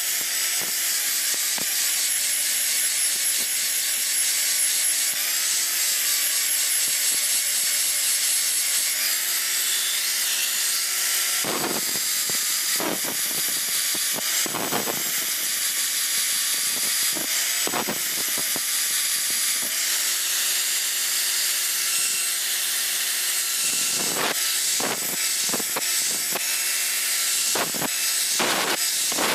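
Electric angle grinder running and grinding the edge of a steel blade: a steady motor whine under the hiss of the disc on the steel, with several short louder scraping strokes in the second half.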